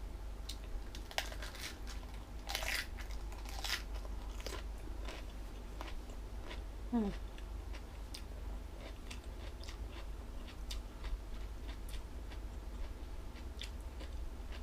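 Close-up crunchy chewing of jellyfish salad dipped in suki sauce: irregular crisp crunches, most frequent in the first few seconds, then lighter and scattered.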